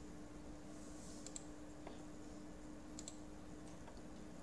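Computer mouse clicks: two quick press-and-release clicks, a little under two seconds apart, over a faint steady hum.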